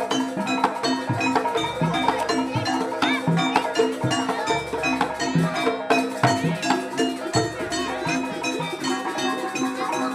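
Jaranan accompaniment music: a gamelan-style ensemble with tuned metal percussion ringing a fast repeating pattern over regular drum strokes.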